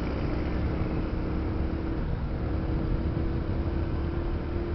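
Steady low rumble of a moving road vehicle, engine and road noise, with a faint steady hum that comes in a little before halfway.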